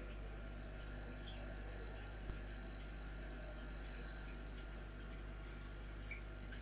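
Aquarium equipment running: a steady low hum with faint bubbling water, and one soft click about two seconds in.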